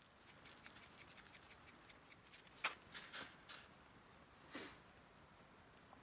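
A rapid run of small, faint clicks and taps, with one sharper click near the middle, then a brief soft rustle, like small objects being handled at close range.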